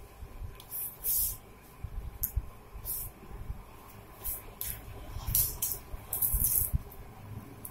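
A string of short, irregular rustling hisses, about eight of them and bunched together around the sixth second, over a faint low rumble: handling and rustle noise at the microphone.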